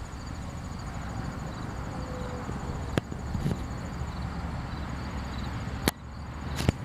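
Wind buffeting the microphone as a steady low rumble, with a few sharp clicks from the camera being handled, about three seconds in and twice near the end.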